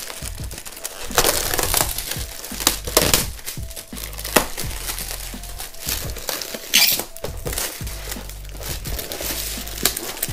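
Clear plastic film being peeled and pulled off a cardboard box, crinkling and rustling in uneven bursts, over background music with low bass notes.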